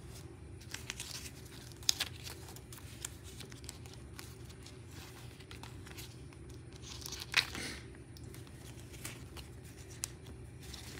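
Clear plastic binder pouch crinkling as it is opened and handled, with paper bills rustling and scattered sharp clicks. It is loudest in two brief moments, about two seconds in and again about seven seconds in, over a low steady hum.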